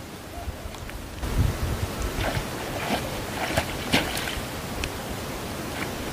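Hooked catfish thrashing at the surface on a taut line, a run of sharp, irregular splashes over a steady wash of water noise.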